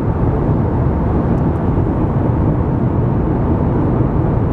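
Steady cabin noise of an Airbus A321 in flight, the deep even hum of engines and airflow heard from an economy seat.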